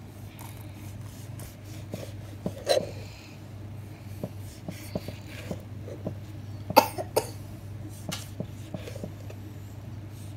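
Kitchen knife chopping steamed lemons into wedges on a plastic cutting board: irregular sharp knocks of the blade striking the board, a few of them louder, over a steady low hum.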